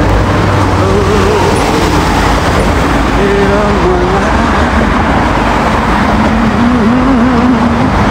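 Steady road traffic noise, with a sung melody whose pitch wavers slowly heard over it.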